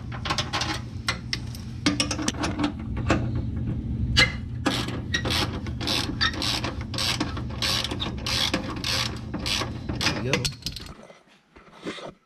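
Hand ratchet wrench with an extension clicking in quick repeated strokes as a bolt at the fuel tank is undone, to lower the tank. A steady low hum runs underneath, and the clicking stops about a second before the end.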